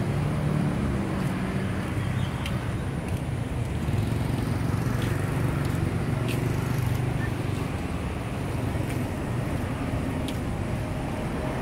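Steady low rumble of road traffic across the city, with a few faint ticks scattered through it.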